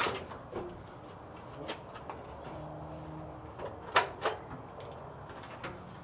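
A few faint clicks and knocks, the sharpest pair close together about four seconds in, from the cab of a 1966 Ford F250 as its floor-mounted high-beam dimmer switch is searched for and pressed.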